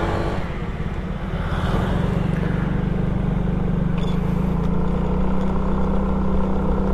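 Old Yamaha Mio scooter's single-cylinder four-stroke engine running at a steady, even pitch while riding, under a constant rush of wind and road noise.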